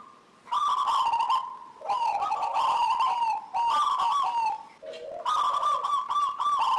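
Zebra dove (perkutut) singing: phrases of quick, bubbling coo notes, each lasting one to three seconds, follow one another with short pauses.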